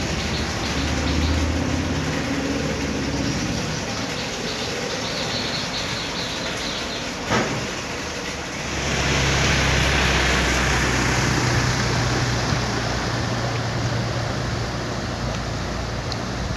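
A steady mixed background noise, with a single click about seven seconds in. From about nine seconds in it grows louder: a motor vehicle's engine runs with a steady low hum while its wheels wash through floodwater with a hiss.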